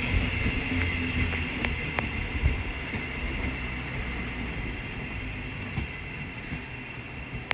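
Thameslink Class 700 electric multiple unit at the platform: a low rumble that fades away, with a steady high-pitched whine over it.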